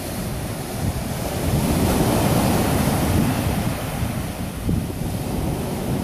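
Atlantic surf breaking on a sandy beach: a continuous wash that swells about a second in, peaks, and eases off again. Wind rumbles on the microphone throughout.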